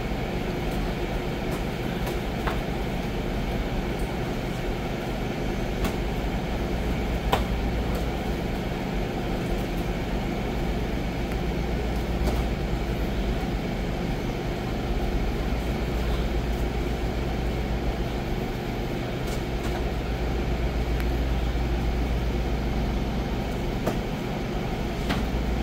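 Steady droning hum of large wall-mounted gym fans, with a few sharp smacks of kicks and punches landing on gloves and shin guards scattered through it, the loudest about seven seconds in.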